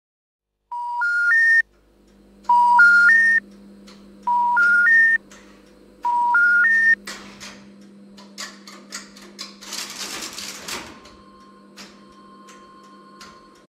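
A telephone special information tone, three rising notes played four times over, the signal that comes before an intercept announcement. Then the Tesla UK11 crossbar exchange's relays and crossbar switches click and clatter over a steady equipment hum, with a dense burst of clatter about ten seconds in and a faint steady tone near the end.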